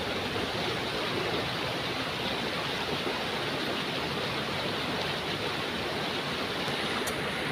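Steady rush of shallow stream water flowing along a concrete channel.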